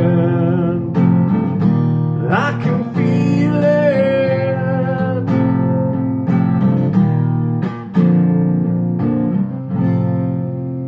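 Acoustic guitar strumming the closing chords of the song, with the last chord struck near the end and left ringing.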